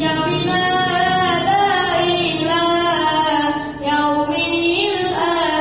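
A woman singing a slow, unaccompanied melody in long held notes that slide up and down, with a brief break a little under four seconds in.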